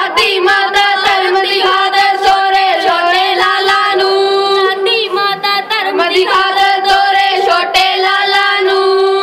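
A group of children singing a Punjabi Sikh devotional song in unison into handheld microphones, with long held notes.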